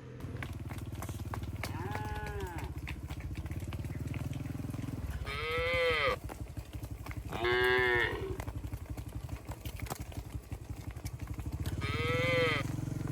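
Cattle mooing: four drawn-out calls that rise and fall in pitch, the first fainter and the later three louder, over a steady low rumble.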